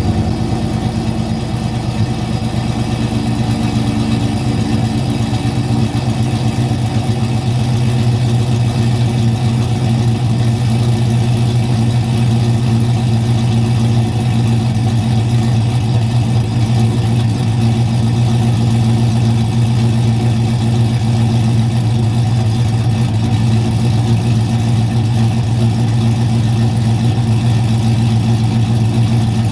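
Ram 1500 pickup's V8 idling steadily just after a cold start, after sitting unstarted for about three weeks. The exhaust cutout is open, so the exhaust is loud and uncorked.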